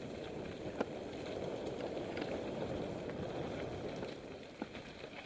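Mountain bike rolling over a rocky dirt trail: a steady rumble of tyres on dirt and stones, with sharp clicks and rattles from the bike and loose rock, one hard knock about a second in.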